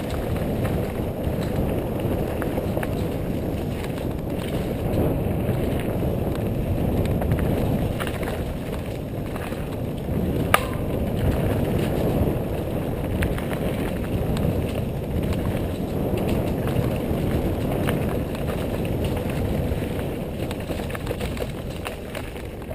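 Mountain bike rolling over a dirt trail: a steady rumble of tyres and rattling bike parts, with one sharp click about ten seconds in.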